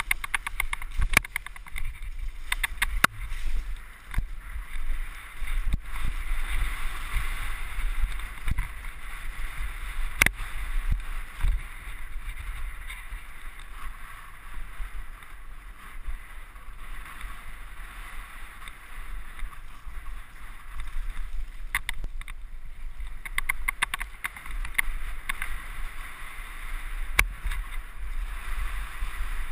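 Mountain bike ridden fast down a gravel forest trail, heard from a handlebar-mounted camera: tyres hissing over gravel, the bike rattling and clicking over bumps in bursts, with a low rumble of wind on the microphone.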